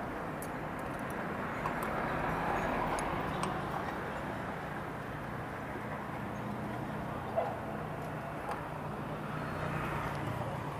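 Small scooter engine idling steadily, with a few light clicks of hand-tool work on the scooter, one sharper about seven seconds in.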